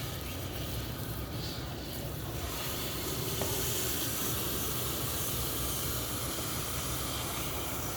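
Steady hiss of spraying water, growing louder about two and a half seconds in, as a plastic chicken waterer is rinsed clean.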